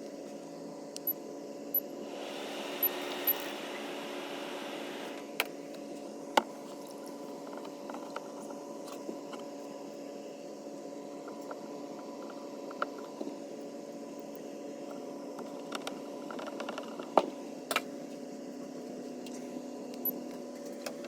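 Swamp cooler water pump running with a steady hum, its rotor freshly freed from buildup that had stuck it. A rushing noise sets in about two seconds in and stops sharply about three seconds later, and scattered sharp clicks and knocks of handling sound over the hum.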